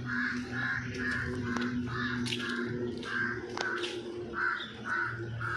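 A crow cawing over and over, about two calls a second, pausing briefly near four seconds in, over a steady low hum.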